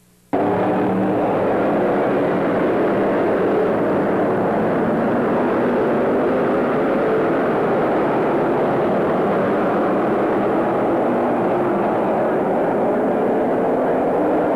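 Several race cars' engines running at speed around a short oval track, starting abruptly a moment in: a loud, continuous din of overlapping engine notes that shift in pitch as the cars pass.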